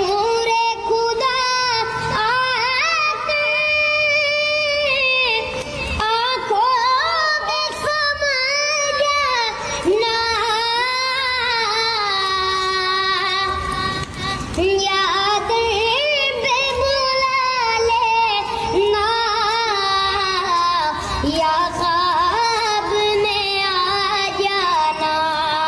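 A child's high voice singing an Islamic devotional chant, in long held phrases with wavering, ornamented pitch and short breaks for breath.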